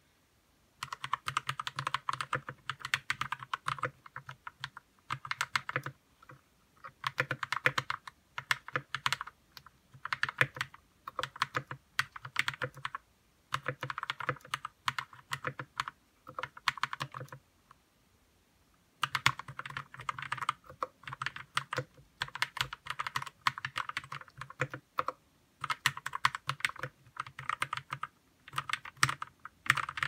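Typing on a Royal Kludge RK61 mechanical keyboard with lubed red linear switches and stabilizers lubed with Krytox 205g0: quick runs of keystroke clacks in bursts of a second or two, broken by short pauses and a longer lull of about a second and a half just past halfway.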